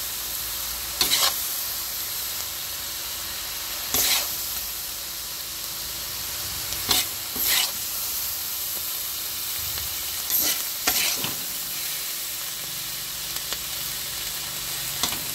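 Stir-fried onion flower stalks and pork sizzling steadily in a steel wok on low heat, with a metal ladle-spatula scraping across the wok about seven times as the food is scooped out.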